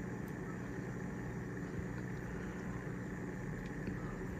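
Steady low background hum, as of a room fan or air-conditioning unit, with no distinct handling clicks standing out.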